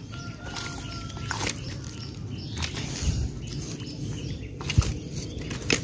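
Leaves and twigs rustling and snapping as a long wooden stick is pushed and prodded through streamside plants, with scattered sharp knocks, two louder ones near the end.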